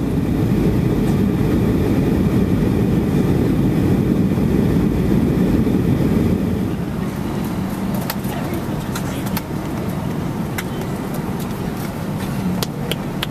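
Jet airliner cabin noise on the descent: a steady low rumble of engines and rushing air. It eases a little about halfway through, and a few sharp clicks come near the end.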